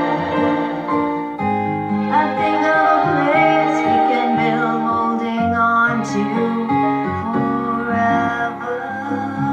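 Music: an instrumental passage of a song, playing on at an even level.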